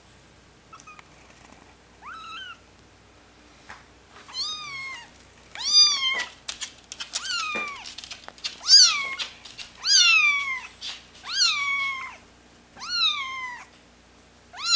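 Young Bengal kitten mewing repeatedly while being handled: a series of high-pitched mews, each rising then falling, about one a second, growing louder after the first few.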